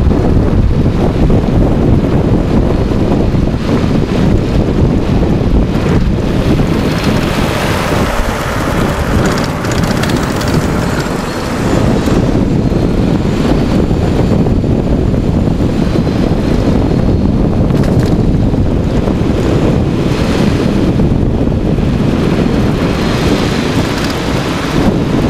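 Steady, loud wind buffeting the microphone of a camera mounted low on a fast-moving electric bike, a dense low rumble that dips briefly about ten seconds in.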